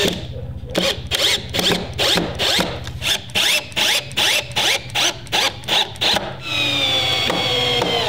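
Power drill driving wood screws into timber: a string of short, quick whirs, about two or three a second, as the trigger is pulsed, then one long steady run near the end whose pitch sinks slowly.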